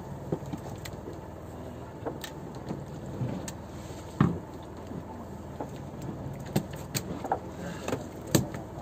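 Steady hum of a motor running aboard a small fishing boat, with scattered knocks and thumps on the deck. The loudest knock comes about four seconds in and another comes near the end.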